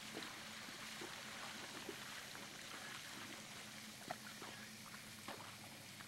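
A horse's hooves splashing faintly through shallow water and mud at a walk, with a few sharper clicks and a steady low hum underneath.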